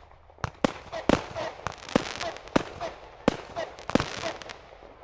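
Class C consumer aerial fireworks going off in quick succession: an irregular string of about a dozen sharp bangs and cracks in five seconds as small shells burst into stars.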